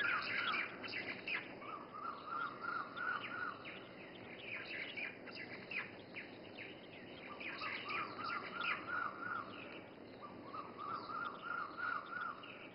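Birds chirping outdoors: many short, quick chirps, with a run of about six repeated notes heard three times.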